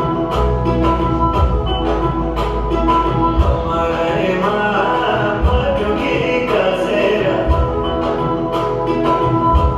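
A song playing, with steady held notes and a regular drum beat; a voice sings through the middle part.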